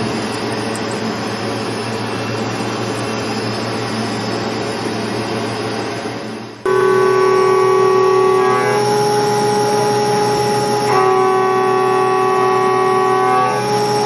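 CNC lathe machine noise: a steady mechanical running sound, then after an abrupt cut about halfway through, a louder steady whine of several tones that steps to a new pitch a few times.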